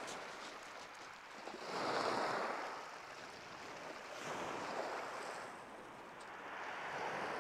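Surf breaking and washing up the beach, the hiss swelling and fading every two to three seconds.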